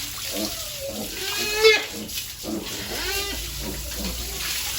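Piglets squealing: two high squeals about a second and a half apart, the first one the loudest.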